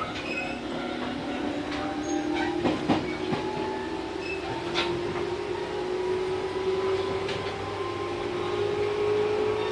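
Running sound inside a Tobu 8000 series electric train: the traction motors hum with a pitch that climbs slowly as the train gathers speed, and a few wheel knocks over rail joints sound about three seconds in.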